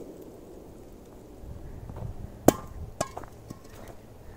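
An enamelled steel bowl lands on the ground after being blown into the air by a firecracker: a sharp metallic clank about two and a half seconds in, then a smaller clank half a second later as it bounces, each ringing briefly.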